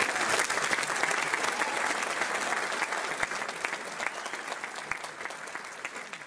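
Audience applauding: dense clapping that slowly fades.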